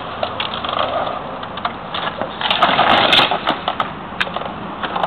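Hard plastic wheels of a Green Machine tricycle and the wheels of a wheelchair rolling fast on asphalt: a steady rattling rumble with scattered clicks, a little louder about halfway through.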